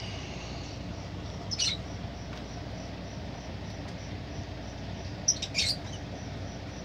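Lovebirds squeaking: a short burst of high squeaks about a second and a half in, and a louder cluster about five seconds in, over a steady low hum.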